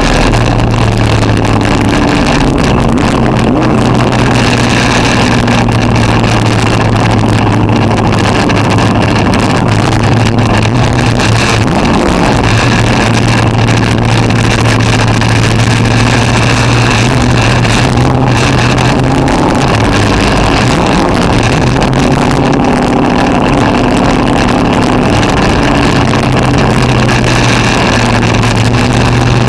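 Street stock race car engine heard from inside the car, running hard under racing load over heavy wind and road noise. The engine note dips briefly twice and then picks back up.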